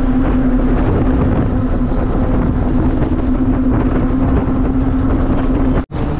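Inside a moving bus: the engine drones steadily under road and wind noise. The sound drops out abruptly for an instant near the end.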